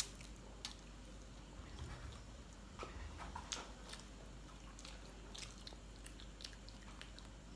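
Several people chewing sauce-covered McDonald's french fries: soft, quiet chewing with scattered small mouth clicks and ticks.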